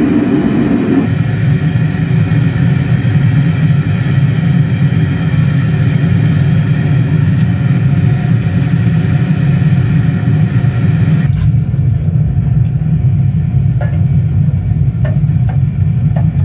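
Gas burner of a keg-shell melting furnace running, a loud steady rushing rumble. About eleven seconds in the higher part of the noise drops away, leaving a deeper rumble.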